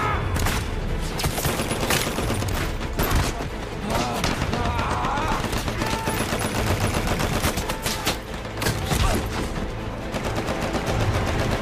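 Heavy battlefield gunfire: many overlapping rifle and automatic-weapon shots, cracking in rapid, irregular succession.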